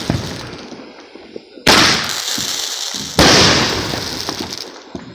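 Fireworks exploding overhead: two loud bangs about a second and a half apart, each fading away over a second or so, after the tail of an earlier burst.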